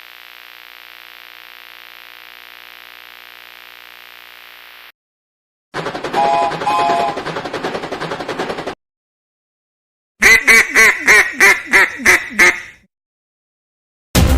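Three separate short sound effects with silent gaps between them. First comes a faint steady hum for about five seconds, then a dense noisy clip with two short tones, then a rapid run of loud duck quacks, about three a second.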